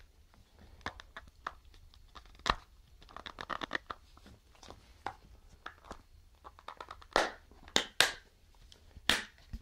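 Irregular plastic clicks, scrapes and rustles of hands prying the snap-on back cover off a Jolla smartphone.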